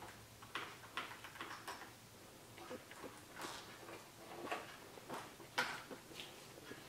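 Faint, irregular small clicks and taps of a screwdriver and a metal ring terminal being worked onto the negative terminal bolt of a motorcycle battery.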